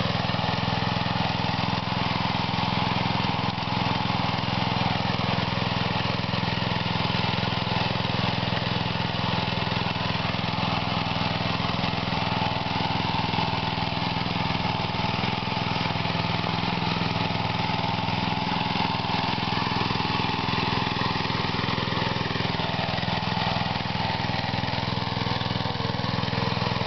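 Small gasoline engine of a walk-behind mini rotovator running steadily as its tines till the soil.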